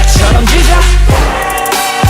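Hip-hop track instrumental with heavy electronic bass and booming kick drums, no vocals.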